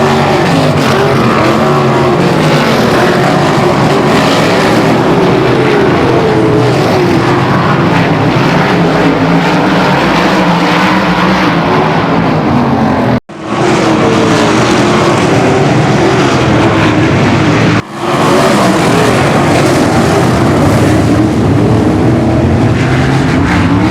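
410 sprint cars' methanol-burning V8 engines running hard on track, several engines overlapping with their pitch rising and falling as they go around. The sound cuts out abruptly for a moment twice, about 13 and 18 seconds in.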